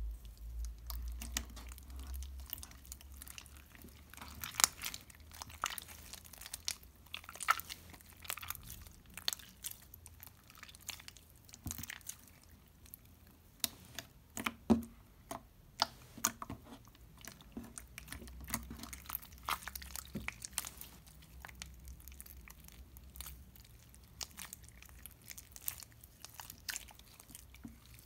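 Wet water slime and clay being squeezed and pulled between fingers, giving irregular sticky clicks and squelches with a few louder pops. The slime and clay are not mixing, so the mass keeps tearing and smearing apart.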